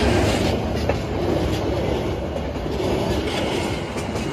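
Steady rumble and rattle of dense road traffic: engines and rolling vehicles mixed together, with no single source standing out.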